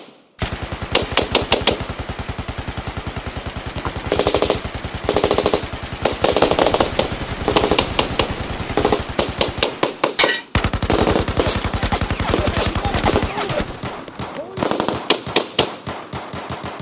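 Sustained automatic machine-gun fire in long, rapid bursts. It breaks off briefly about ten seconds in, then thins to scattered shots near the end.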